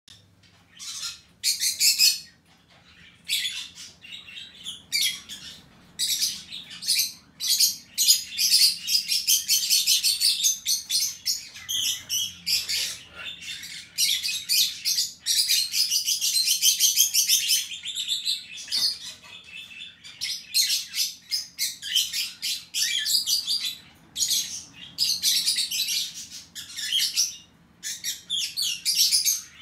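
Hagoromo (frizzle) budgerigars chattering in rapid high chirps and warbles. The chatter comes in bursts with short pauses, running almost unbroken for several seconds at a time in the middle.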